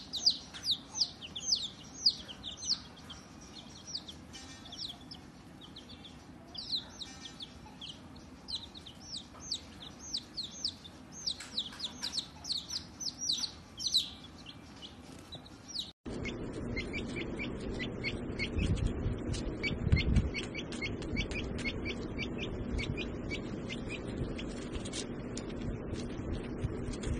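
Flock of baby chicks peeping, a busy string of high, falling peeps from many birds. After a sudden cut about sixteen seconds in, a fast run of short high ticks over a low steady hum.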